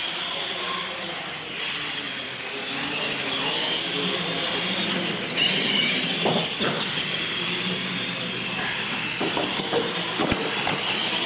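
Radio-controlled monster trucks racing on a concrete floor: their motors and gearboxes whine, rising and falling with the throttle, over tyre noise. A few sharp knocks come near the end as one truck rolls over.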